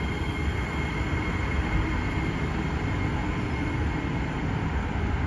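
C151B metro train rolling past close by, a steady rumble of wheels on rail with a thin high whine that fades out about halfway through.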